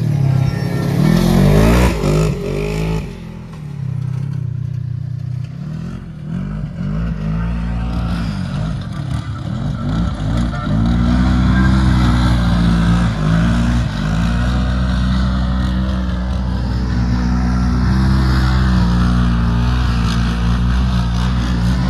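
Polaris RZR side-by-side engine revving hard as it drives and slides on loose dirt, its pitch rising and falling over and over with the throttle. It drops off briefly about three seconds in and is louder in the second half.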